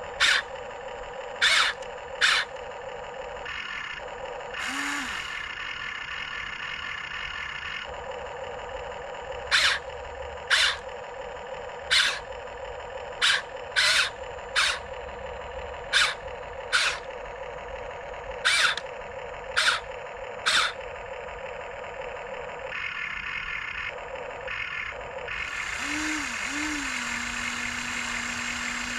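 Whine of a Tamiya King Hauler radio-controlled truck's electric motor and gearbox, hauling a loaded trailer and stopping and starting several times. Loud, short, sharp chirps come about once a second over it.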